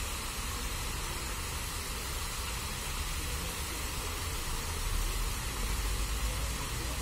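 Fountain jets spraying and splashing into a stone basin: a steady rushing hiss, with a low rumble underneath that swells a little past halfway.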